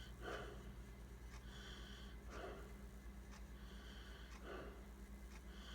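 Faint breathing close to the microphone, soft in-and-out breaths repeating about every second, over a steady low hum.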